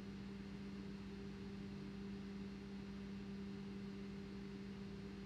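A faint, steady low hum with no other sound.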